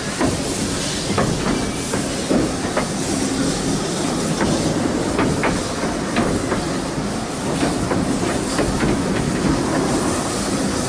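Narrow-gauge steam train moving off slowly, heard from a carriage. It rumbles steadily, and its wheels click irregularly over the rail joints, with the locomotive's steam hiss behind.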